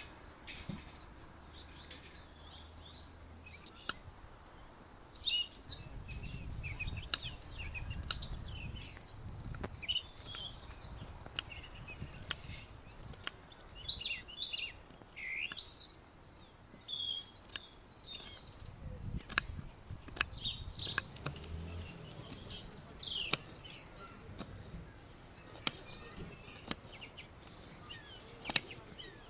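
Small birds chirping, with many short, quick high calls that come thick and fast, mixed with scattered sharp clicks and two stretches of low rumble.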